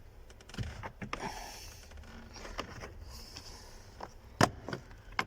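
Light plastic clicks and rattling from the cabin air filter cover behind a Nissan Navara's glovebox being handled, with one sharp click about four and a half seconds in.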